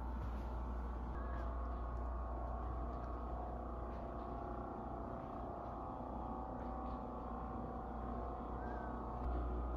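Steady low hum of room tone with faint, sustained higher tones over it. The hum grows a little louder near the end.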